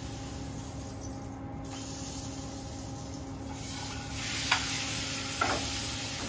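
Sirloin sizzling in a frying pan on a gas range. The hiss builds about halfway through, with two sharp metallic clicks of tongs against the pan, over a steady hum.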